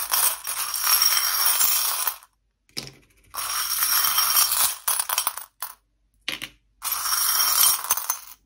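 Small metal charms jangling and clinking as a hand stirs through them in a glass bowl, in three bouts with short pauses and a few single clicks in between.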